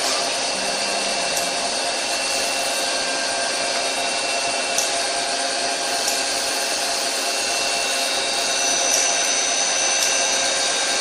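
Doosan CNC lathe running with its spindle turning: a steady machine whir with several high, even tones and a few faint ticks.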